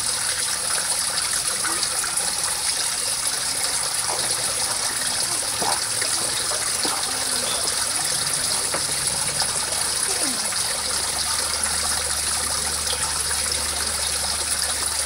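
Water running steadily over a low step in a small pond, a continuous trickling splash. A low steady hum joins about two-thirds of the way through.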